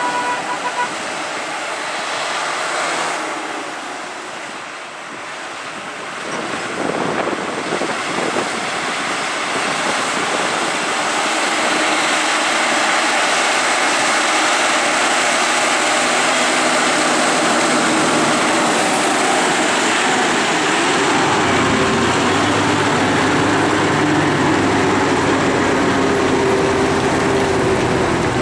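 Heavy diesel lorries running through a hairpin bend. The engine and road noise grows louder over the first dozen seconds, then holds steady, and a deeper engine rumble joins about three-quarters of the way through as a lorry comes close.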